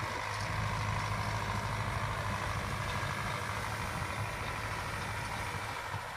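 Engine running steadily with a low, even drone.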